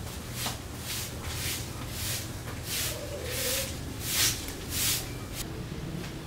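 Broom sweeping a stone-paved floor, in repeated swishing strokes about two a second, two of them louder just past the middle.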